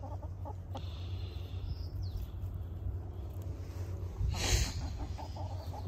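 Backyard hens making faint, soft sounds over a low steady rumble, with a brief rustle about four seconds in.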